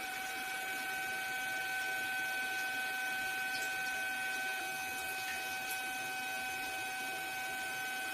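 A steady machine whine over an even hiss, holding one constant pitch with a higher overtone, with a few faint ticks.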